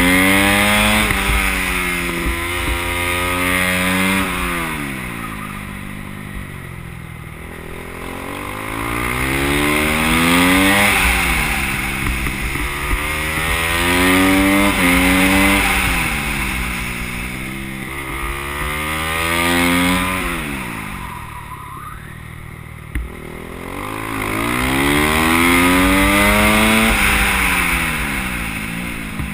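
Go-kart engine heard onboard, climbing in pitch as it accelerates and dropping as it slows for corners, several times over.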